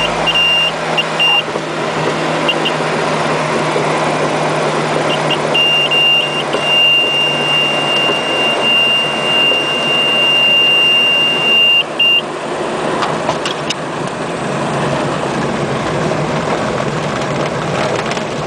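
Single-engine propeller aircraft heard from inside the cockpit, its engine and propeller running steadily as it rolls along the runway. A high tone sounds in short chirps, then holds steady for about six seconds before cutting off about twelve seconds in.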